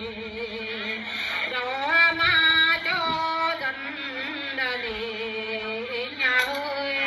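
Women singing a festival greeting song unaccompanied, in long held notes that waver and slide between pitches.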